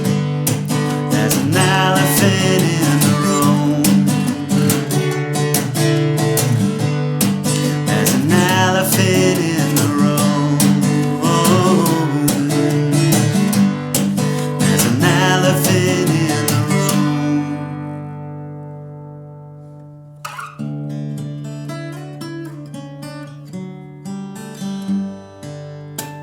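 Music: acoustic guitar played in a full strummed passage that rings out and dies away about two-thirds of the way through, followed by softer, sparser picked notes.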